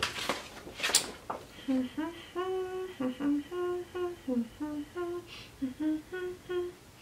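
A woman humming a wordless tune under her breath: a string of short, separate notes that step up and down in pitch. Near the start there is a brief rustle and tap of packaging being handled.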